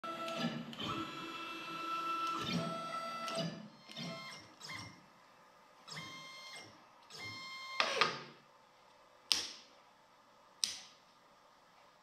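Stepper motors of a Langmuir Crossfire XL plasma CNC table whining through a series of short jog moves of the gantry, starting and stopping several times over the first eight seconds. After that come a few sharp clicks.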